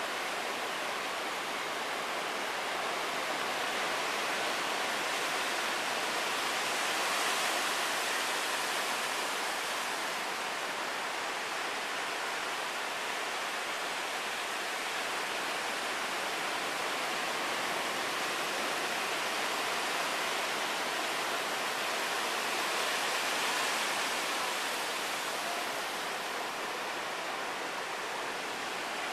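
Ocean surf: a steady wash of breaking waves that swells twice, about seven seconds in and again about twenty-three seconds in.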